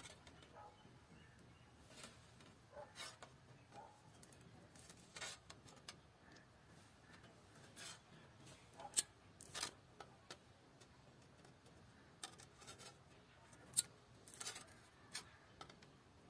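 Plier-type saw set clicking faintly as it is squeezed onto a hand saw's teeth one at a time, bending each tooth to set it. Irregular sharp clicks about every second or two, two of them louder.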